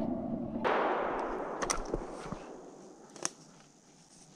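Rolling echo of a rifle shot through the forest: the shot's tail, then a second swell of echo about half a second in that fades away over about two seconds, followed by a few faint clicks.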